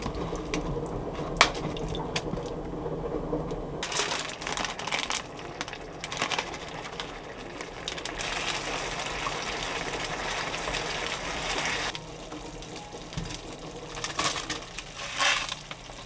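Leftover chicken and rice cakes in sauce tipped from a plastic tray into a pan, with clicks and clatters. Then a steady hiss of the sauce sizzling in the pan, which stops abruptly, and a few more clatters near the end as dry noodles go into a pot.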